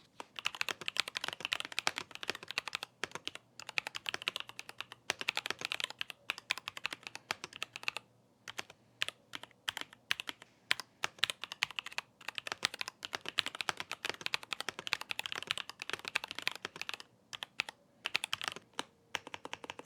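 Typing on a mechanical keyboard fitted with double-shot PBT keycaps: fast runs of sharp key clacks, broken by a few short pauses.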